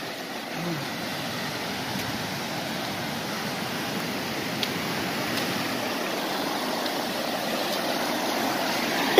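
Creek water rushing over rocks: a steady rush that grows gradually louder toward the end.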